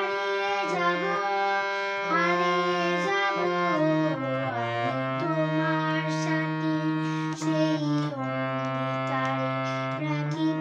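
Harmonium playing held chords over a bass that steps from note to note every second or two, a melody moving above: the instrumental introduction to a Bengali song.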